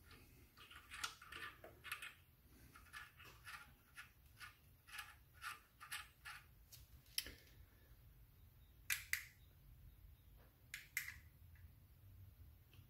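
Faint metallic clicks and taps as a puller-style spigot bearing press, its bolt just stripped, is handled and adjusted against the crankshaft flange. A quick run of clicks lasts about seven seconds, then two short pairs of clicks come near the end.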